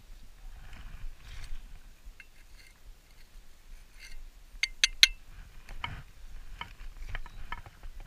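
Gloved hands crumbling dug soil and a serrated hand digger scraping and knocking in the dirt: a soft rustle, then scattered sharp clicks, the loudest three close together about five seconds in.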